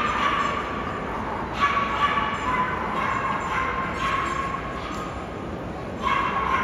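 A dog whining: long, high, slightly wavering whines that stop and start again several times, with a couple of short sharp sounds about a second and a half and two seconds in.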